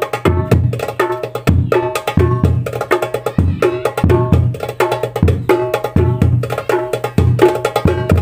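A darbuka and hadroh bass drums played by hand together in a steady repeating rhythm. Deep bass strokes sit under sharp, ringing darbuka strokes, and the pattern comes round about every two seconds.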